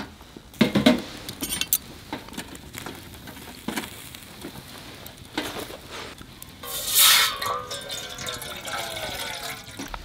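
Camp cooking sounds: scattered clinks and knocks of utensils and cookware, then liquid poured into a pot about seven seconds in, with a hiss and a wavering pitch as it fills.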